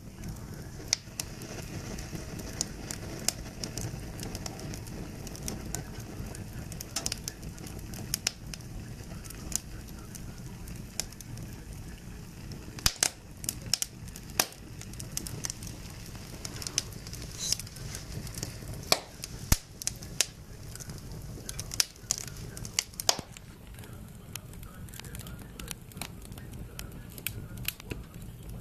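Wood fire burning in a fireplace, crackling with irregular sharp pops over a low, steady rush of flame.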